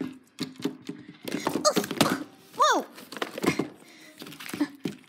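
Knocks and thuds of small plastic toy figures being handled and set down on a wooden table, with a few short high vocal sounds that slide up and down around the middle.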